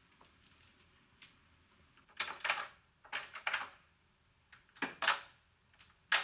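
Metal door security chain and lock being handled: short bursts of clicking and rattling, about four in all, the last a sharp clack near the end.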